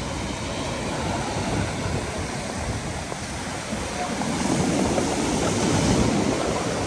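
Sea surf breaking and foaming water washing over a concrete slipway: a steady rushing that swells louder about four seconds in.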